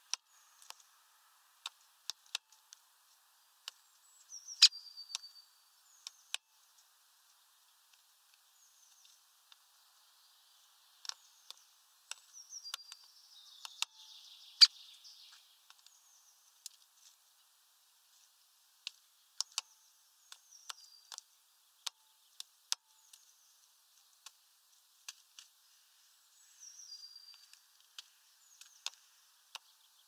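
Woodpecker pecking at a bird feeder: sharp, irregular taps, two of them much louder than the rest. Short high bird chirps come now and then in between.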